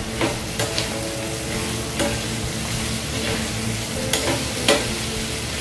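Leftover barbecue chicken with garlic, onion and tomato frying in a nonstick pan, sizzling steadily while it is stirred. The utensil clicks and scrapes against the pan several times, loudest near the end.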